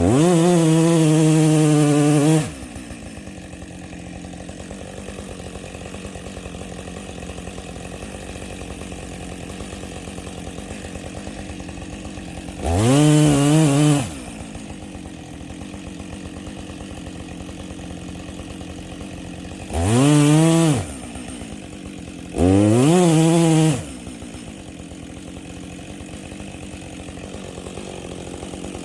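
Chainsaw idling, with four short bursts of full throttle where the engine revs up quickly, holds, then drops back to idle. It is cutting a leaning fir tree, working the back cut to fell it.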